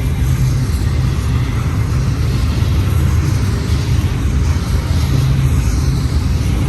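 Long freight train rolling past at speed: a steady, loud low rumble of wheels on rail with an even hiss above it.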